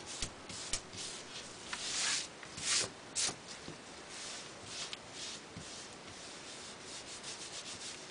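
Fingertips rubbing and smoothing a sheet of designer paper down onto a glue-coated Formica sample chip, a series of dry rubbing strokes. Several louder strokes come in the first three or four seconds, then lighter, quicker ones.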